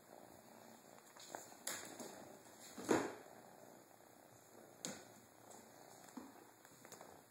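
A kitten purring faintly and steadily, broken by a few knocks and rustles, the loudest a single thump about three seconds in.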